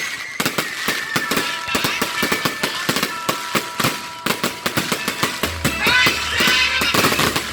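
Fireworks going off in a rapid barrage of sharp pops and bangs, several a second, with music playing underneath.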